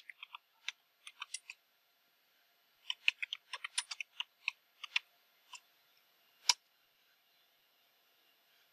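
Computer keyboard keys clicking as a command is typed, in two quick runs of keystrokes, then one louder final keystroke about six and a half seconds in.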